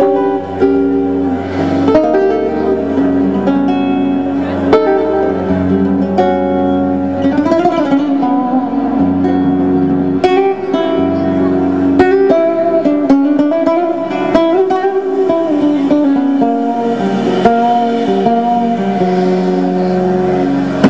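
Live jazz with a flamenco flavour: acoustic guitar playing, with saxophone and a drum kit.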